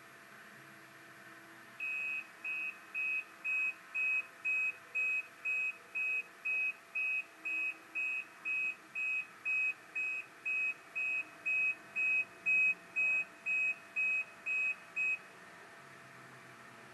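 Caterpillar 950M wheel loader's backup alarm beeping as it reverses off the trailer: even, high beeps at one pitch, about two a second, starting about two seconds in and stopping about two seconds before the end.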